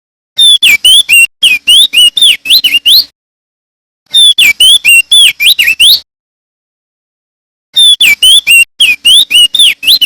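Male opior jambul (crested dark-eye) singing loudly in three rapid phrases of sliding whistled notes, each phrase about two to three seconds long with a second or so of silence between them.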